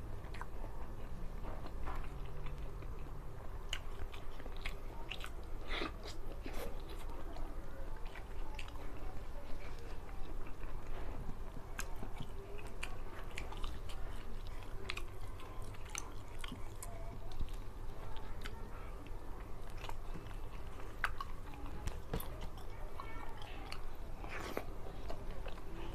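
A man chewing mouthfuls of rice and fish with sambal, close to the microphone, with many short sharp mouth clicks scattered throughout, over a steady low hum.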